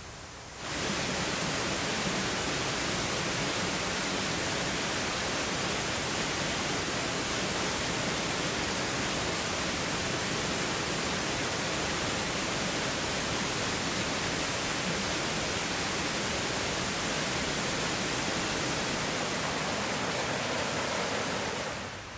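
Steady rush of a waterfall, an even wash of water noise that cuts in abruptly about a second in and drops away just before the end.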